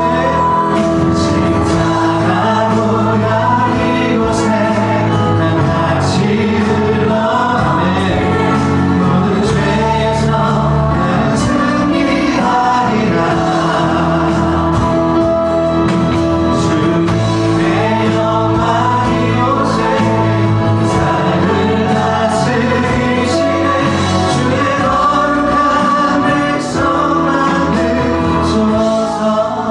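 Contemporary Christian worship song: a group of voices singing with full band accompaniment, with sharp percussion hits recurring throughout.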